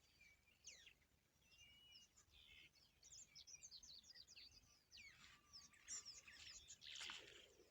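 Faint birds chirping and singing: many quick, high, short notes with a few gliding whistles.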